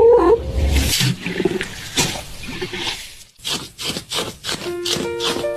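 A cat growling with a wavering pitch near the start, followed by a run of sharp clicks and taps, with steady musical notes coming in near the end.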